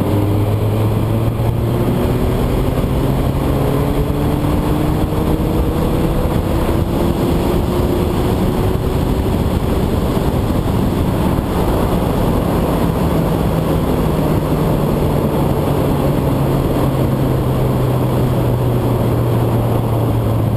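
Suzuki Bandit 1200S inline-four engine running at road speed under heavy wind rush on the microphone. Its note climbs slowly through the first half and then eases down gradually.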